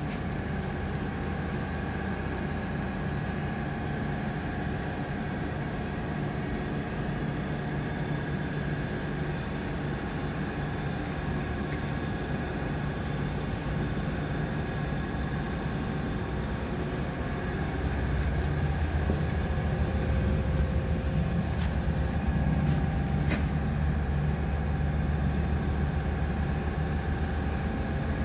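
Steady machinery hum and noise of a steel fabrication shop, with a few faint steady whining tones. It grows louder, with a deeper rumble, about two-thirds of the way through, and a few sharp clicks sound shortly after.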